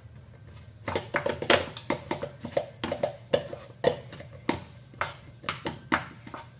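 Plastic rice paddle knocking and scraping against a metal pot in quick irregular strokes, about three or four a second, starting about a second in, as freshly cooked rice is broken up for fried rice.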